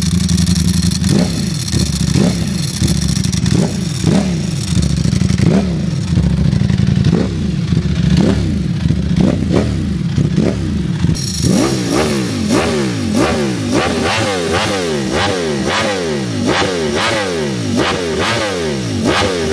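Ducati Streetfighter V4 Lamborghini's V4 engine revved over and over through its exhaust, each blip rising and falling in pitch. The blips come about once a second at first, then quicker, about two a second, from about eleven seconds in.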